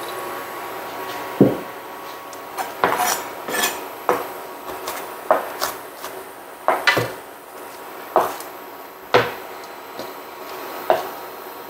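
Chef's knife chopping onion on a plastic cutting board: sharp, irregular knocks of the blade on the board, roughly one a second.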